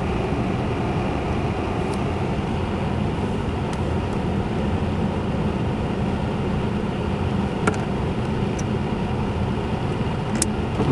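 Car driving on snowy back roads, heard from inside the cabin: a steady low rumble of engine and tyres with a hiss of road and wind noise, and a few scattered sharp clicks, the loudest near the end.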